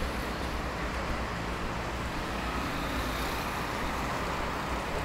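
City street traffic at night: a steady rumble of vehicle engines and tyre noise, with a low engine hum underneath.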